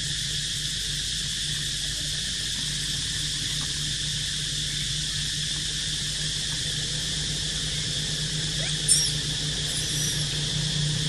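Steady outdoor insect drone, with a low hum beneath it. One short high squeak sounds about nine seconds in.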